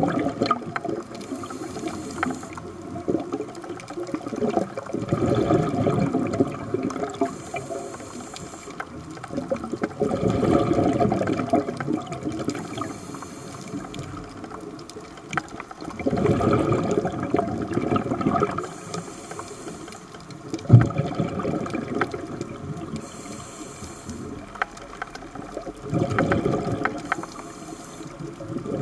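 Scuba regulator breathing underwater, heard close: a thin hissing inhale, then a louder rush of exhaled bubbles, repeating about every five seconds. A single sharp click about twenty seconds in.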